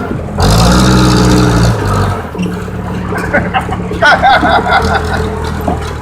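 Case 580E backhoe's diesel engine heard from inside the cab: it revs up briefly, then settles back about two seconds in to a lower, steady running speed.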